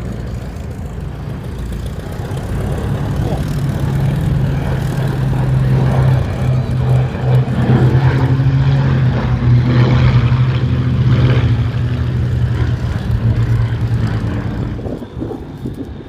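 Propeller aircraft engine drone as an aircraft flies past. It grows louder to a peak about two-thirds of the way through, then fades away near the end.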